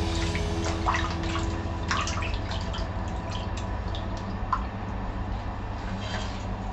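Water sloshing and dripping in a stainless steel bowl as hands rub and rinse split fish, with scattered small splashes. The fish are being washed in salted water after splitting.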